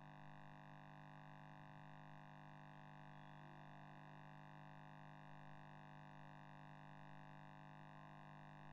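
Near silence: only a faint, steady electrical hum from the recording setup.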